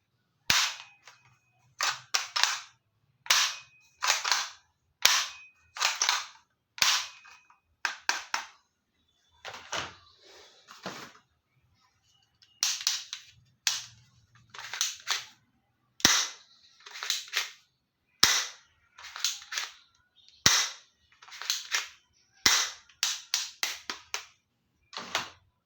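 Toy gun firing over and over, sharp snaps in quick pairs and triples, with a short pause about halfway through.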